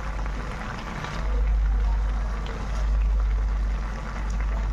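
A low steady rumble, loudest through the middle, under soft scraping from a spatula stirring chopped vegetables in a metal pan.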